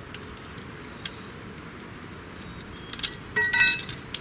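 Small metal hardware clinking and jingling in a short burst about three seconds in, with a bright metallic ring, over a steady low background hum.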